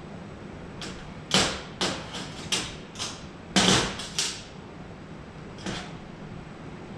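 A series of sharp knocks and clatters, about nine in five seconds, the loudest near the start and in the middle, over a steady low hum.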